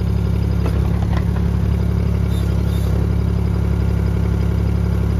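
HAIHONG CTX8010 mini excavator's engine running steadily at a constant speed, with a few faint clicks about a second in.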